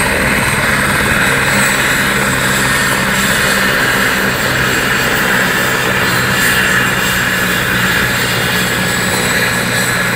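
Eurocopter Écureuil air-ambulance helicopter running at the helipad: the main rotor turning with a steady high turbine whine over it, level and unchanging throughout.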